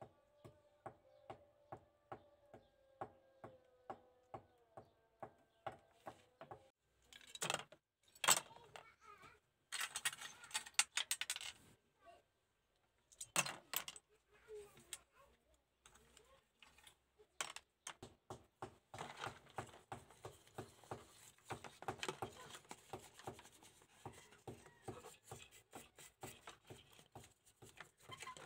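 Small parts of a scale model car clicking and clattering as they are handled, then a bristle brush scrubbing the parts in a tub of soapy water from about 18 seconds on. A steady ticking about three times a second runs underneath.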